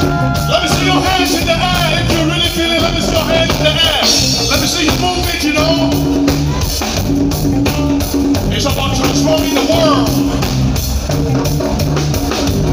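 Live band music: drum kit keeping a steady beat under bass, electric guitar and singing.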